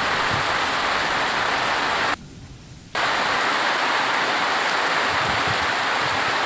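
Steady heavy rain, an even hiss of falling water, that drops out sharply for under a second about two seconds in, then resumes at the same level.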